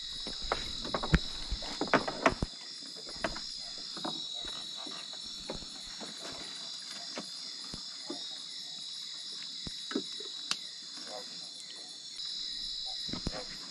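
Steady high chorus of night insects, with scattered sharp knocks and taps from a fishing net and its catch being handled in a wooden boat. The knocks are loudest and thickest in the first couple of seconds.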